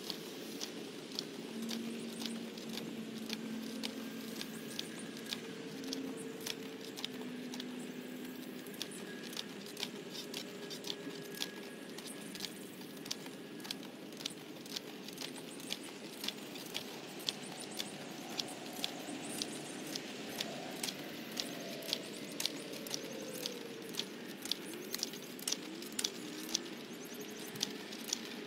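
Two-wheeled push cultivator (wheel hoe) worked through garden soil: a regular sharp clicking, nearly two clicks a second, over a faint steady hum.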